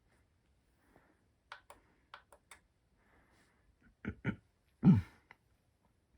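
A few light clicks, then three dull thumps about four to five seconds in, the last the loudest. There is no steady alarm tone or beeping.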